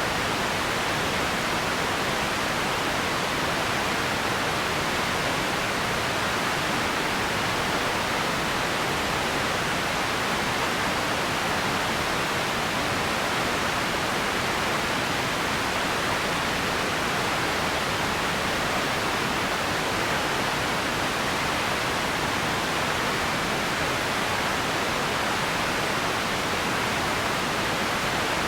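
Empty ambience noise: a steady, unchanging hiss with no distinct events.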